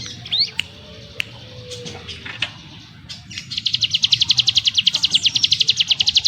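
Ciblek gunung, a prinia, singing: a few scattered sharp chirps, then, about three and a half seconds in, a fast dense rattling trill of about a dozen short notes a second, the 'ngebren' burst.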